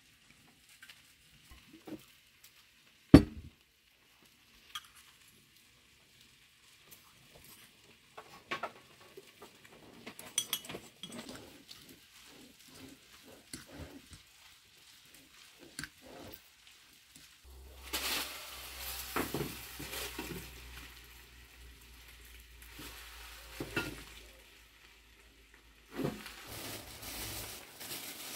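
Hands tossing an arugula salad in a glass bowl, the leaves rustling softly, with one sharp knock about three seconds in. Later come louder spells of crinkling from a plastic bag being handled.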